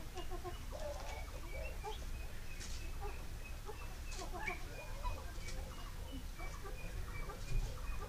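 Ring-necked pheasants giving soft, short clucking calls, repeated in small clusters, over a steady low rumble, with a faint thin high note repeating in the background.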